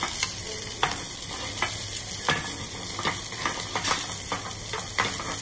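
Bacon, button mushrooms and whole cherry tomatoes sizzling in olive oil in a frying pan. A metal spoon stirs them, clicking and scraping against the pan again and again.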